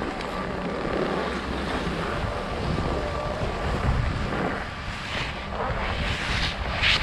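Wind rushing over an action camera's microphone as a skier slides down a mogul run, with skis hissing on packed snow. Sharper scrapes of the ski edges through turns come in from about five seconds in.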